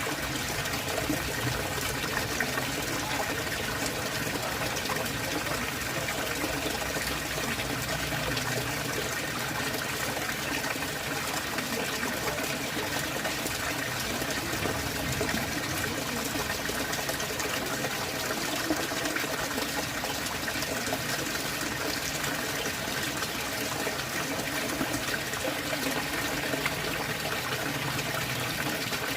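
Water in a fish pond running steadily, an even rushing with no breaks.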